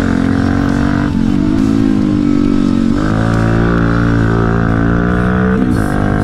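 Quad bike (ATV) engine running under throttle. The note holds steady, but its pitch dips and climbs back three times: about a second in, at about three seconds, and near the end.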